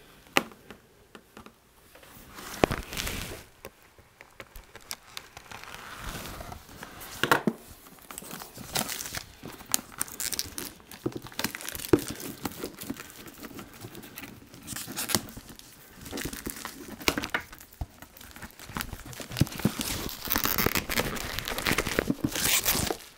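Plastic shrink wrap being slit with a pocketknife and torn and peeled off a cardboard game box, crinkling and crackling in irregular bursts with sharp clicks. The crinkling is heaviest near the end as the wrap comes away.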